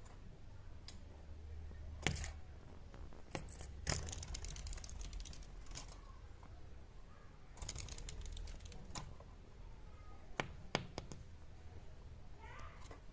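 Birds on a window ledge: scattered sharp taps and clicks of beaks and claws, with two short runs of rapid clicking, over a low steady hum, and one brief chirp near the end.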